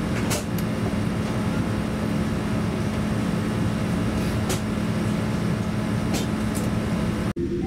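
Boeing 787-8 cabin noise while taxiing: a steady rumble with a constant low hum from the engines and air systems, and a few faint clicks. Near the end the sound drops out for an instant and gives way to a steadier, higher hum.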